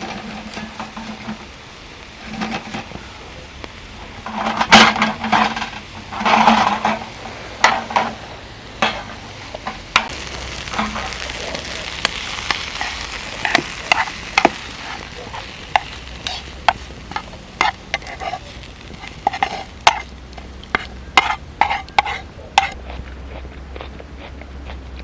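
Food frying in a pan while being stirred with a utensil: irregular sharp clinks and scrapes, louder clattering a few seconds in, and a sizzle that swells about ten seconds in and then settles.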